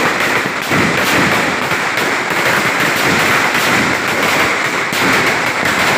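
A long string of firecrackers going off in a rapid, unbroken crackle of bangs.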